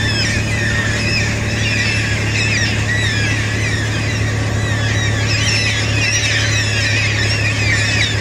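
A flock of black cockatoos calling overhead: many overlapping wavering screeches, one over another without a break, over a steady low hum.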